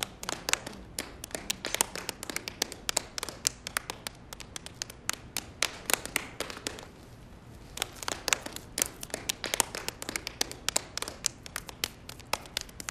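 Hands patting wet clay as handmade pots are shaped: quick, irregular taps, with a short lull about seven seconds in.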